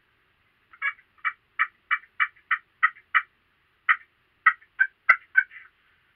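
A turkey call run close to the microphone: a series of about fourteen short hen-style yelps, evenly spaced at first and coming quicker near the end. Two sharp clicks are mixed in toward the end.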